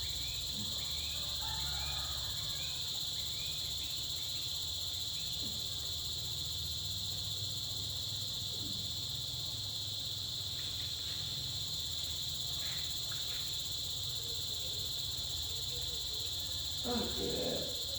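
Steady high-pitched insect chirring, like crickets, over a low steady hum, with a brief murmur of voices near the end.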